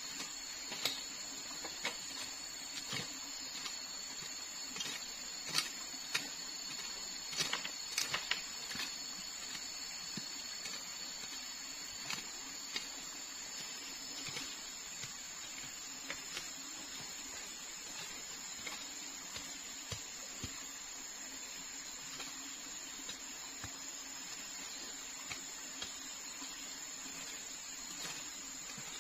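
Irregular knocks and scrapes of a short-handled hand tool chopping into soil, thickest in the first third and sparser later, over a steady high drone of forest insects.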